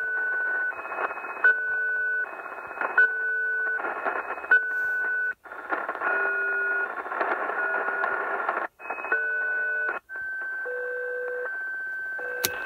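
Shortwave radio receiving an unidentified beeping signal near 4185 kHz over static hiss. Two-tone beeps about three quarters of a second long alternate with equal gaps of hiss. After a few brief dropouts, as the tuning is stepped a kilohertz either way, the beeps shift in pitch and end in one long steady tone, followed by a sharp click near the end.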